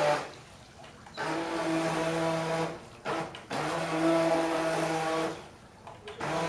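Toy radio-controlled speedboat's small electric motor whining at a steady pitch, starting and stopping in runs of one to two seconds as the throttle is worked, with a short blip near the end.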